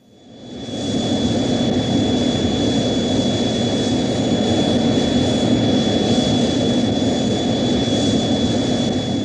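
Jet-engine-like roar from an Ultraman sound-effect clip: a dense steady rush with a thin high whistle held through it, swelling up over about the first second and then holding level.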